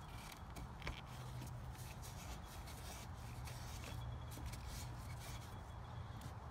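Microfiber towel wiping and rubbing over degreased engine-bay fittings and hoses in a run of short, soft strokes, over a faint steady low rumble.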